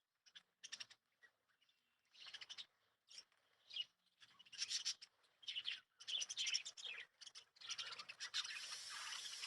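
Small pet parrots chirping in short, scattered high calls that grow busier and more continuous toward the end.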